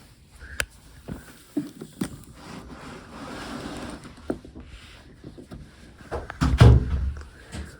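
Scattered light knocks and clicks of things being handled, with a louder low thump about six and a half seconds in.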